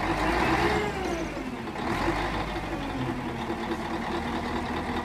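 A heavy dump truck's diesel engine runs steadily as the truck tips its raised bed. A rush of sand sliding out of the bed is heard in the first second and again about two seconds in.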